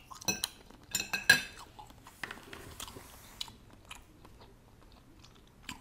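Metal fork clinking and scraping against a plate a few times in the first second and a half, then quieter chewing of baked fish.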